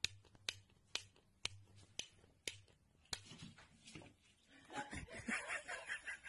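A fingernail flicks the metal pull-tab of a food can, making sharp clicks about twice a second. About five seconds in, a cat gives a wavering meow as it comes running.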